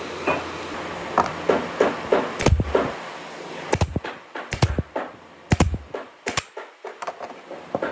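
Pneumatic nail gun driving nails into wooden boards: several sharp shots between about two and seven seconds in, some in quick pairs, with lighter knocks of boards being handled before them.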